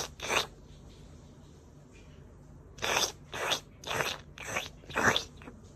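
White cat making a series of short, harsh mouth sounds: two at the very start, then five more, about two a second, from about three seconds in.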